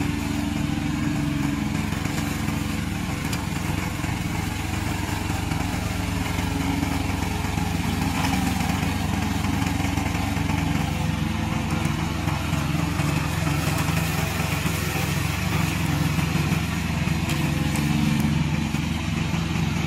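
Petrol engine of a remote-controlled tracked slope mower running steadily as the mower cuts tall dry grass.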